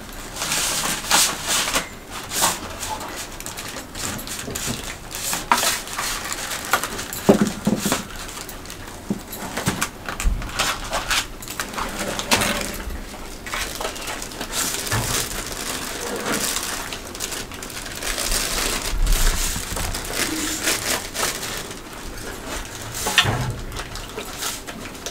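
Aluminium foil food containers and lids crinkling and rattling as they are filled and closed, with a steel ladle clinking in a steel bowl of curry: a steady run of irregular rustles and clinks.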